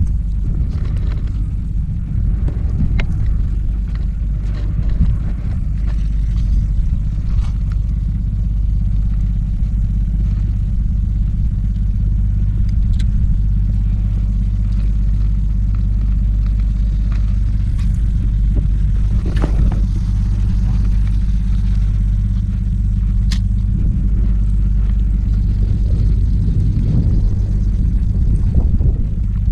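Wind buffeting the microphone: a loud, steady low rumble, with a few faint clicks scattered through it.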